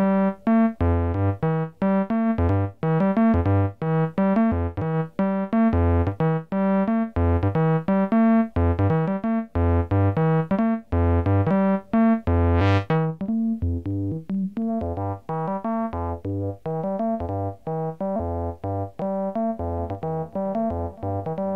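Behringer 2600 semi-modular synthesizer playing a fast sequenced pattern of pitched notes over low bass hits, with unevenly spaced, lurching timing: one LFO is modulating the pulse width of the other LFO that clocks the sequence. A brief rising swish comes about halfway through.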